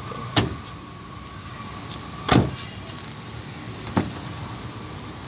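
A Daihatsu Mira's front door shut with a thump about two seconds in, between two lighter clicks of door and latch handling, one just before and one near the end. A faint steady tone sits under the first half.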